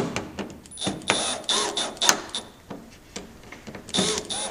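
Milwaukee Fuel brushless cordless drill run in many short stop-start bursts, its bit scraping out a bolt hole in a plastic wingtip adaptor.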